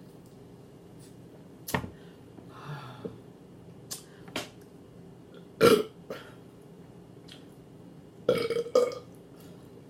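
A woman burping loudly: one short burp a little past halfway and a longer burp near the end, with a few small clicks before them.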